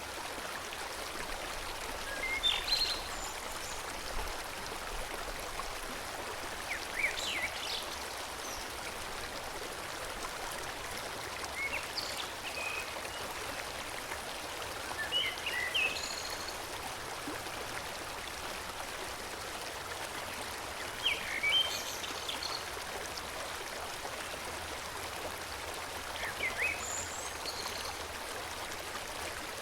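A forest stream flowing steadily, with birds giving short high chirps every few seconds over the water.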